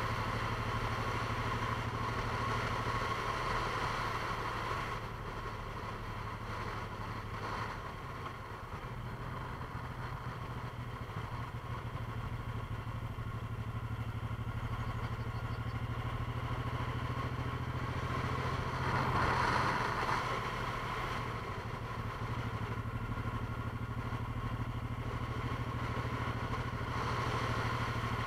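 A steady low mechanical hum, dipping slightly about a third of the way in and swelling briefly louder about two-thirds of the way through.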